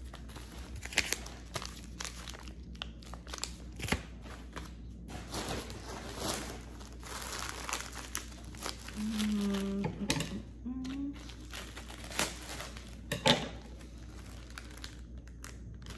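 Plastic packaging crinkling and rustling in irregular crackles as small items are unwrapped by hand, with a brief hummed vocal sound about nine seconds in.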